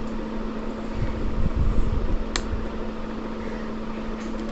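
A steady low hum, with rumbling handling noise on the microphone in the first couple of seconds and a single sharp click about two and a half seconds in.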